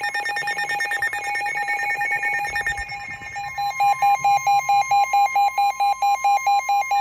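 NOAA weather radios sounding their alert for a Special Marine Warning. First a rapid buzzing warble, then from about three seconds in the steady 1050 Hz weather alert tone with a radio's loud pulsing alarm beep over it, about three beeps a second.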